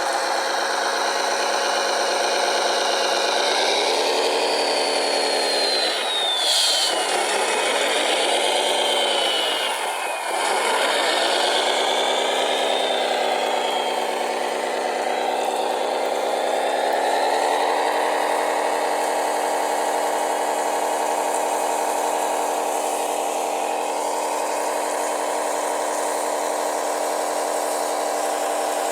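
Radio-controlled model construction machine running: a steady motor drone whose pitch dips and recovers twice, then climbs and holds steady, with a thin falling whine over the first half.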